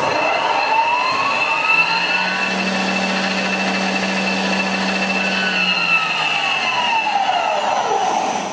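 Nardini Genius 250 CNC lathe spindle running up to speed with a rising whine, holding steady for a few seconds, then spinning down with a falling whine, over a steady high-pitched whine from the machine.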